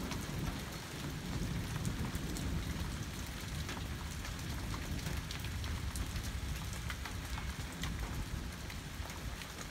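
Steady rain falling during a thunderstorm, with many separate drops tapping close by and a low uneven rumble underneath.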